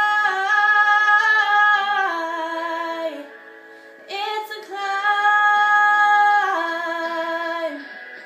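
A young woman singing solo: two long held phrases of a slow pop ballad, each stepping down in pitch as it ends, with a short break about three seconds in.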